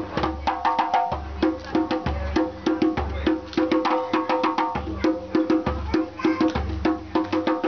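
Djembe hand drumming in a steady, fast rhythm: quick sharp strokes several times a second, with a low bass stroke about once a second.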